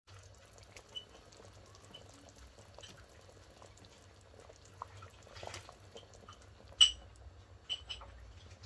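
A pot of soup simmering with small bubbling pops, and soft splashes as raw meatballs are dropped into the hot broth one after another. There is one sharp, louder click about two-thirds of the way through, over a faint low hum.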